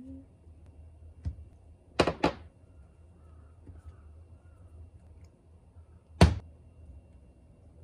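Sharp knocks of things being handled and set down on a wooden cutting board and kitchen counter: a light click, then a quick double knock about two seconds in, and a single louder knock near the end.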